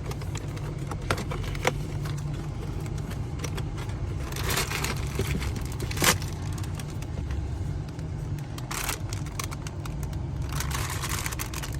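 Packaging of a toy blind box being handled and opened: rustling and crinkling in short bursts, with one sharp snap about six seconds in, over a steady low rumble.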